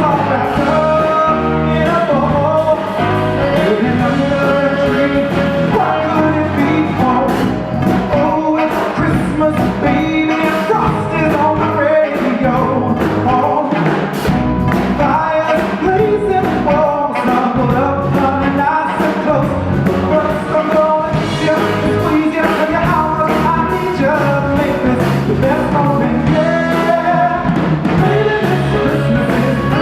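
A live band playing a Christmas song with a singer on lead vocals and drums keeping a steady beat.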